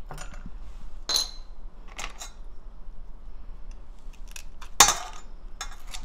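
A metal spoon prying open boiled ark cockles (sae-kkomak) over a stainless steel pot: a string of irregular clicks and clinks of spoon on shell and shells against the pot. The loudest clink comes about five seconds in.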